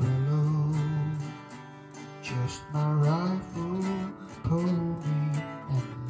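Acoustic guitar strummed steadily under a man's voice carrying a slow country melody in long held notes, with short breaks between phrases.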